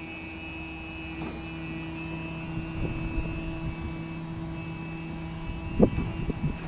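Beech Sierra's electro-hydraulic landing gear pump running with a steady hum while the gear extends on jacks. A sharp knock near the end, then a few lighter knocks.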